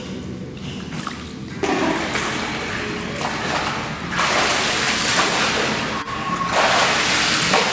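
Pool water splashing and sloshing as an adult and a toddler move through it, louder in the second half.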